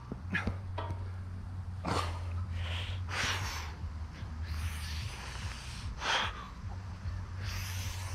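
A man breathing hard through a set of pull-ups: about five short, sharp breaths, roughly a second and a half apart.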